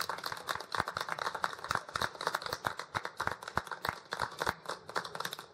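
Audience applause: many separate hand claps in an irregular patter, thinning out near the end.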